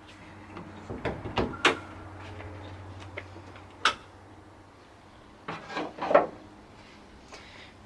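Car bonnet being released and opened: a few sharp clicks and knocks, spread out, with a cluster about six seconds in.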